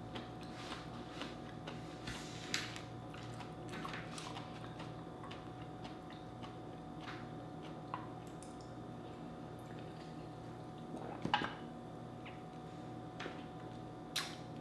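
Soft close-up eating sounds: slow chewing of cooked vegetables with small wet mouth clicks and swallows, scattered and sparse, over a steady faint hum. A couple of sharper clicks stand out about two thirds of the way in and near the end.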